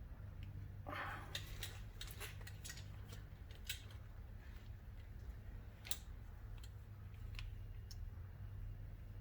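Faint metallic clicks and scrapes of a French door refrigerator's spring-loaded tilt hinge being handled and pushed down, most of them bunched in the first few seconds with a few single clicks later, over a low steady hum.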